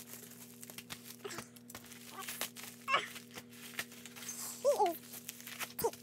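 Packaging being unwrapped: paper and plastic crinkling and tearing in many short clicks and rustles, with a few brief squeaky glides in pitch. A steady low electrical hum runs underneath.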